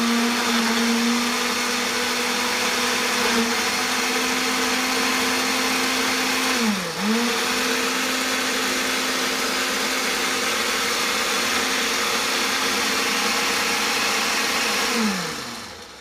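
Ninja countertop blender motor running at high speed, puréeing red and green bell peppers with garlic. The motor dips briefly and recovers about halfway through, then winds down and stops near the end.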